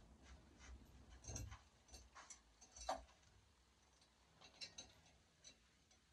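Near silence with faint, irregular clicks and scrapes from hands skinning a raccoon hung on a gambrel; the loudest click comes about three seconds in.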